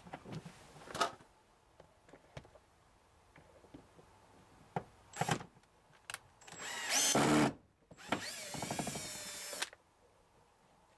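Cordless drill-driver with a Phillips bit running in two short spurts, about a second and then nearly two seconds, as it backs a screw out of a truck door panel's armrest. The motor whine rises in pitch as the first spurt starts, and a few light clicks come before.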